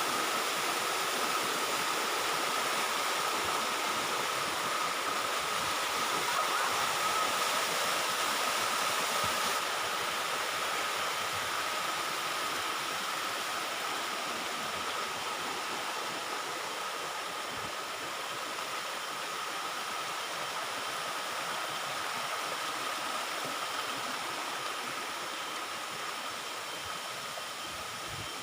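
Waterfall rushing: a steady, even roar of falling water that slowly grows fainter, with a thin steady high tone running through it.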